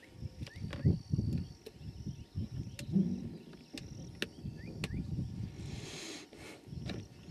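A bull elephant heaving itself up out of thick bush as it comes round from the dart, with irregular rustling, thumps and sharp snaps of brush. A steady high insect chirp runs underneath.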